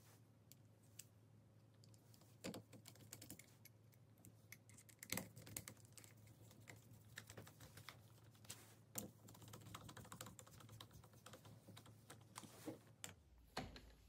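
Faint, irregular small clicks and taps of metal parts as a carburetor top cover is fitted and screwed down by hand on a 1979 Honda CB650 carburetor, with a few sharper taps among them.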